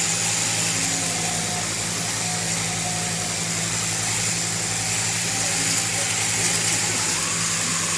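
Electric sheep-shearing machine running, its overhead-drive handpiece clipping through a sheep's fleece with a steady hum and hiss.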